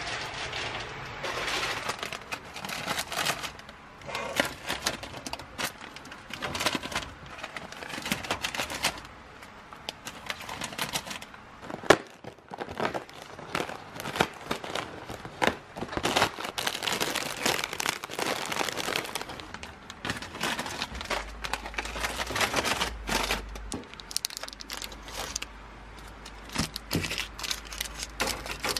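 Plastic snack packets and chocolate-bar wrappers crinkling as they are handled and loaded into a vending machine's spiral coils, with irregular clicks and knocks and one sharp knock about twelve seconds in.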